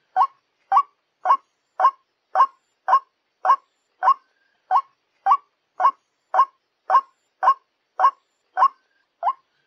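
White-breasted waterhen (ruak-ruak) call used as a trapping lure: a short, hooked call repeated steadily at nearly two calls a second.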